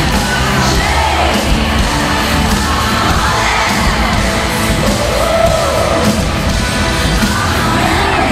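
Live arena concert audio of an electro-rock pop song: a woman singing over a loud, steady band and electronic backing, with the crowd yelling and cheering along.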